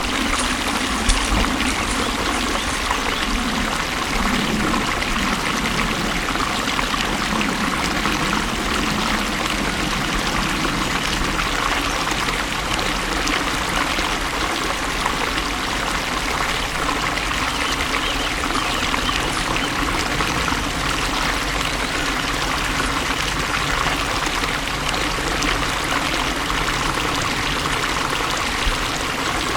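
Flowing water, a stream running steadily with a constant rushing and trickling.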